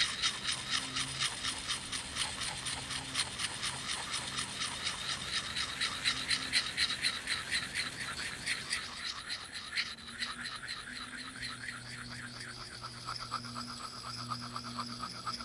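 A fine beach pebble used as a whetstone rubbed in quick, short strokes along a steel axe edge, an even rhythmic scraping that grows softer after about ten seconds. This is honing an edge that has gone slightly dull, polishing it rather than regrinding it.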